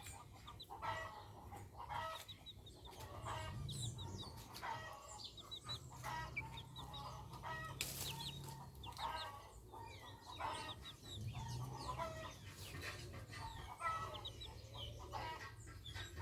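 Chickens clucking and calling, with many quick high peeps scattered throughout over a low steady hum.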